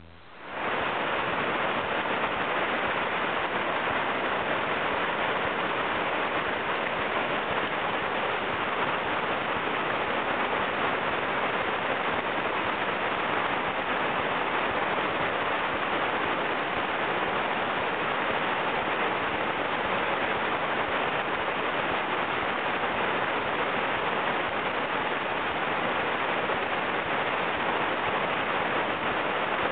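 Whitewater river rapids rushing steadily where the current breaks into a standing wave, a constant even wash of water noise.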